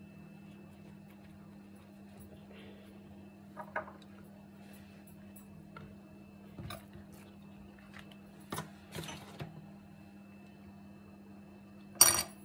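A low steady hum with a few soft rustles and taps from hands handling thin yufka pastry sheets and a foam tray of rolled börek; a short, sharp, louder noise comes near the end.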